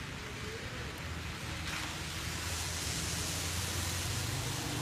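Steady hiss of rain during a night thunderstorm, growing a little brighter and louder about a second and a half in, with a low rumble swelling under it through the middle.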